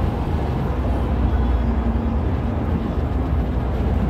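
Engine and road noise heard from inside a vehicle's cab while it cruises on a motorway: a steady low rumble.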